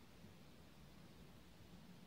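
Near silence: a faint, steady low hum and hiss of room tone, with no thunder.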